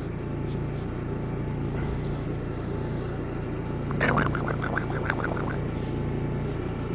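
A puppy lets out a quick run of short, high-pitched yips and growls in play, lasting about a second and a half, about four seconds in. A steady low hum runs underneath throughout.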